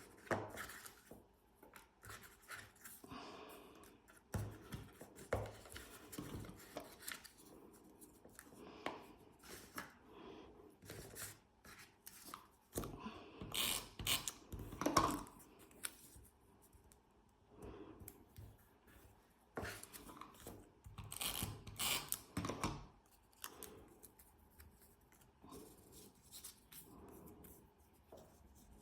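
Small paper pieces being handled and pressed onto a scrapbook page: scattered light rustles, taps and scrapes at an uneven pace.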